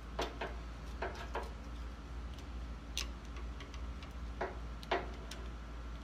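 Scattered light clicks and taps, about eight in six seconds at uneven spacing, from pliers and metal parts being handled at a hydraulic lift cylinder while a ring is fitted into its groove.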